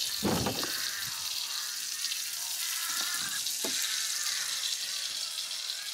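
Food frying in a pan, a steady crackling sizzle, with a couple of soft knocks.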